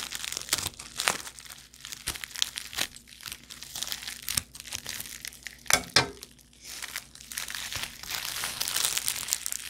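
Thin plastic packaging crinkling and rustling as it is handled and opened by hand, in irregular crackles, with a louder crackle about six seconds in.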